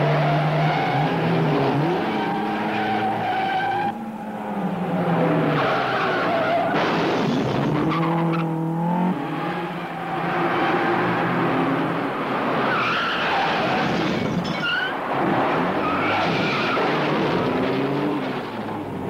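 Car engines revving hard and rising and falling in pitch as they shift gears, with repeated tyre squeals as the cars corner at speed.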